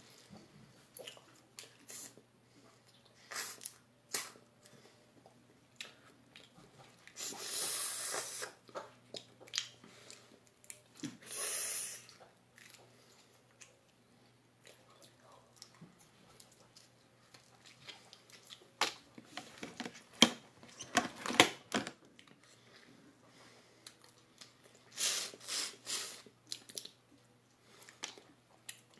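Eating sounds from cooked lobster legs: the meat and juice sucked out with two longer slurps, about seven and eleven seconds in, plus small shell clicks and chewing.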